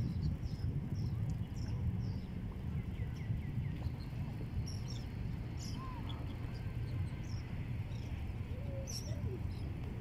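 Open-air seaside ambience: a steady low rumble with scattered short, high bird chirps and a few brief gliding calls.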